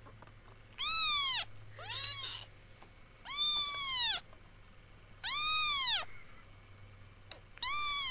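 Kitten meowing five times, one call every second or two, each high-pitched and rising then falling in pitch; the second call is softer than the rest.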